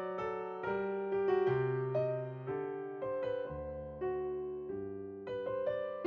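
Background music: a slow piano piece, single notes struck and left to fade over lower held notes.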